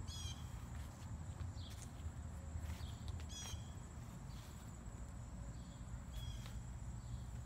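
Insects shrilling outdoors: a steady thin high-pitched whine, with a few short chirping calls breaking in, over a low rumble.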